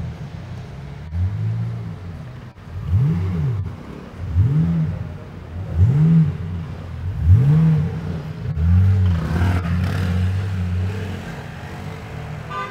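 Pagani Zonda F Roadster's naturally aspirated Mercedes-AMG V12 pulling away with a series of about five sharp throttle blips, each rising and falling in pitch, roughly one every second and a half. The engine then holds a steadier note for a couple of seconds and fades as the car drives off.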